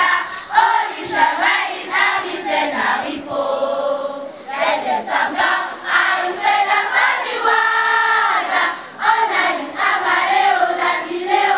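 A choir of many voices singing an anthem, with long held notes.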